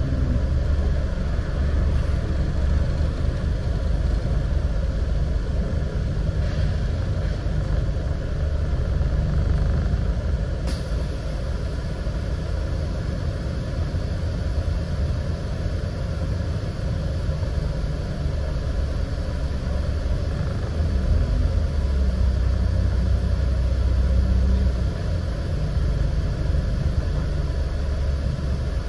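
Scania N94UD double-decker bus under way, heard from on board: a steady low engine and road rumble that swells and eases as it drives, with a single sharp click about ten seconds in.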